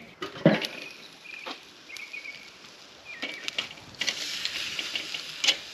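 A few short bird chirps over quiet outdoor background, then about four seconds in, with the grill lid off, steaks sizzling on a hot charcoal grill grate, with a click of metal tongs near the end.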